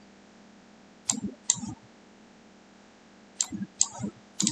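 Computer mouse clicking in quick pairs, double-clicks on spreadsheet column borders to widen the columns. One pair comes about a second in and a few more follow from about three and a half seconds in.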